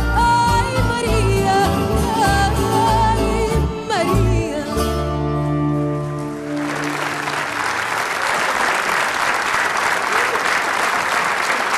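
A woman singing the final phrase of a Portuguese song over Portuguese guitar, viola de fado, bass and cello; the closing chord is held and fades out about halfway through. An audience then breaks into steady applause.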